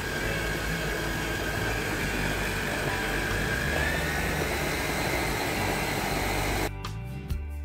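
Tefal food processor motor running steadily with a whine, its blade grinding a bowl of heated sesame seeds for tahini. The sound stops abruptly near the end.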